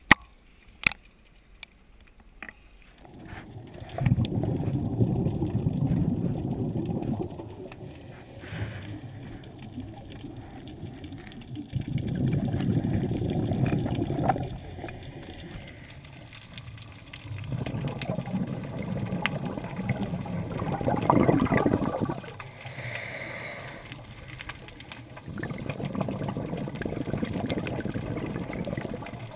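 Scuba regulator exhaust bubbles heard underwater: a low bubbling that comes four times, about three seconds each, with quieter breaths in between. A couple of knocks near the start.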